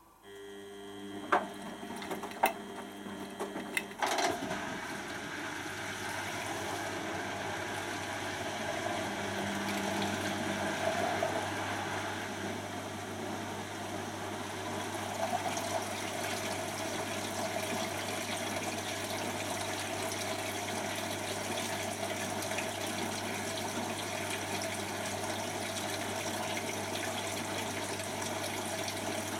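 Beko WTB741R2A washing machine's drain pump switching on with a few sharp clicks, then running steadily with a low hum as water rushes out of the drum: the machine is emptying the rinse water to start its final spin.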